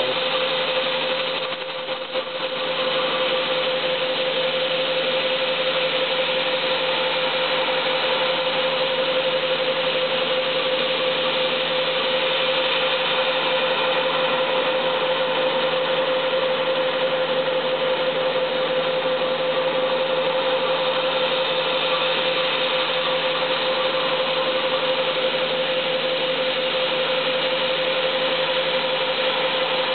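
A threadmill in a Haas TM-1 CNC mill spindle is milling grooves into a Delrin rod. It makes a steady cutting noise with a constant whine, which drops briefly about two seconds in.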